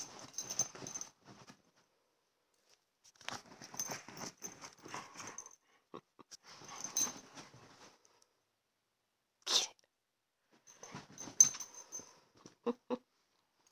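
Dog playing at a blanket: fabric rustling and snuffling in several bursts of a second or two with quiet pauses between, one short sharp burst about nine and a half seconds in, and two brief low sounds near the end.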